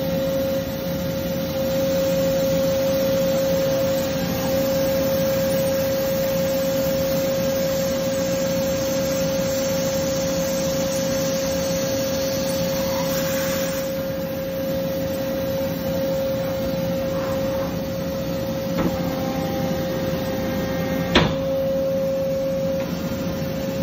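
Franklin HD145 CNC beam drill line running: a steady machine noise with a constant high whine, with a sharp click about 21 seconds in.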